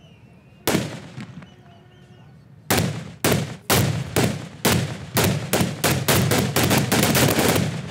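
Homemade explosive charges going off as they are struck with hammers, in the exploding-hammer tradition. A single sharp blast about a second in, then from about three seconds a run of blasts roughly two a second, crowding into near-continuous cracking near the end.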